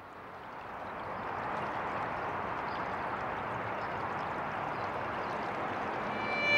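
A steady rushing noise fades in over the first two seconds and then holds level. A violin comes in at the very end.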